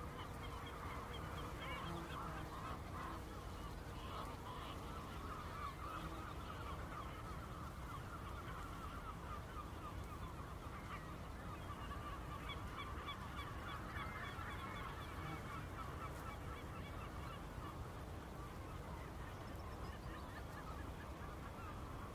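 A large flock of geese calling continuously, many short honking calls overlapping into a dense chatter, over a low steady rush of background noise.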